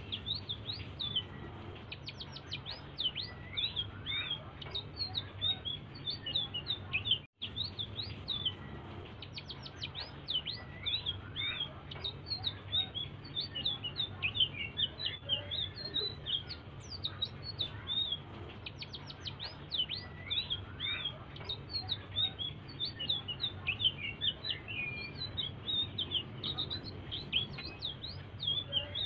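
Selendang biru songbird singing a continuous rapid twitter of high chirps and quick up-and-down notes. The song breaks off for an instant about seven seconds in, over a steady low hum.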